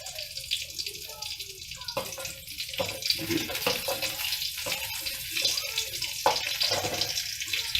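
Green chillies, ginger and garlic frying in a little hot oil in a pan: a steady sizzle with small crackles and pops.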